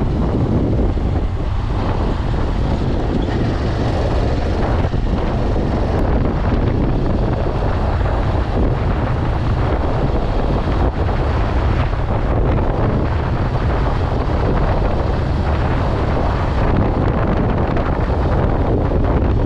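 Wind buffeting the microphone of a camera moving at road-cycling speed: a loud, steady rumble.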